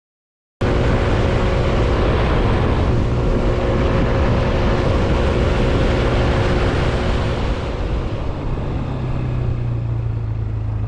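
Wind rushing over the camera microphone together with the steady drone of a Yamaha Smax 155 scooter's single-cylinder engine, riding at highway speed of about 60 mph into a strong headwind. The noise starts suddenly just over half a second in and eases a little in the last few seconds.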